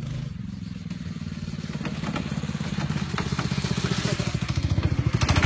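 Go-kart engine running with an even, rapid pulsing that grows steadily louder as the kart approaches.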